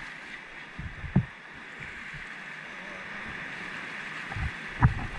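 Sea water washing and sloshing against the rocky shore, with irregular low wind rumble on the microphone and a dull knock about a second in and another near the end.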